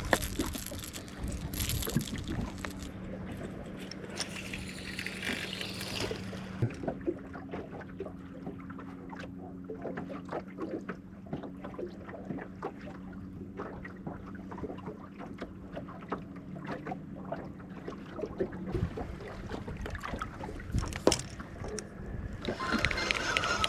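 Boat motor running steadily at trolling speed, a low even hum, with scattered small clicks and knocks from fishing gear being handled.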